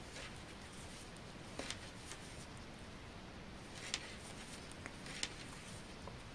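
Faint clicks and light scraping of 3 mm knitting needles as knit stitches are worked, a few sharp clicks scattered over a low steady hiss, loudest about four and five seconds in.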